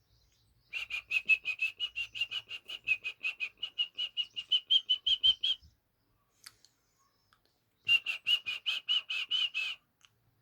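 A bird calling in two runs of rapid, evenly spaced high notes, about six a second. The first run lasts about five seconds and the second, after a pause, about two.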